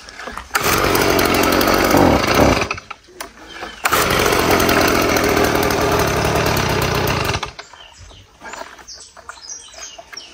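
Petrol leaf blower's small engine running at high speed in two stretches, with a short drop in between, then much quieter from about seven and a half seconds in.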